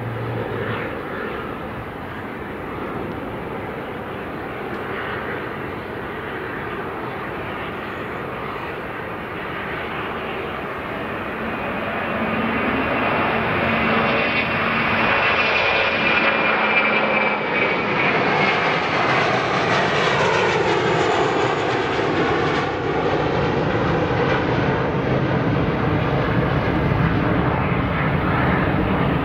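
Airbus A380's four Engine Alliance GP7200 turbofans running at taxi power as the jet taxis past. The whine grows louder about twelve seconds in and falls in pitch as the aircraft goes by.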